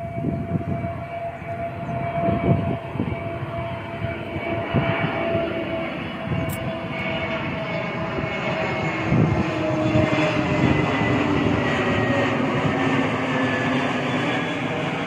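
Airbus A320neo on final approach: the turbofan engines' whine and rushing roar grow louder toward the middle and hold, with their whining tones slowly falling in pitch.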